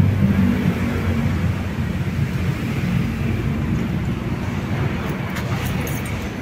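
Yanmar 4TN84 four-cylinder diesel engine of a 15 kW generator set running steadily with a low, even hum, the engine at working temperature.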